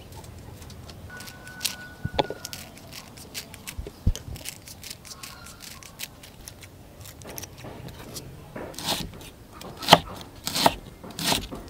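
Food preparation: scattered light clicks and rustles, then knife chopping strokes on a cutting board near the end, about one every 0.7 seconds.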